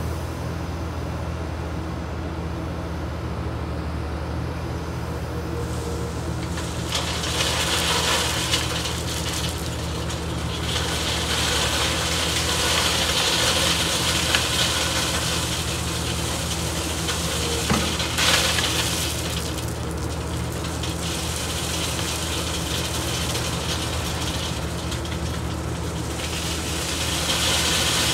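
A heavy excavator's engine and the hydraulic vibroflot of a stone-column rig run with a steady low drone. Stretches of rushing, hissing noise come and go over it, and near the end gravel pours from the excavator bucket into the rig's hopper.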